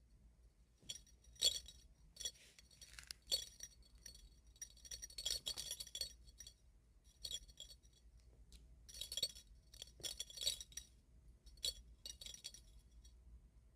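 Faint, irregular light clinking and tinkling, a dozen or so short bright clinks in small clusters, the loudest about a second and a half in and around five and ten seconds in.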